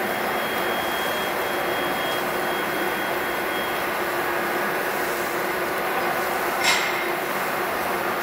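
Steady machine hum and hiss with faint steady tones, and one short sharp click just under seven seconds in.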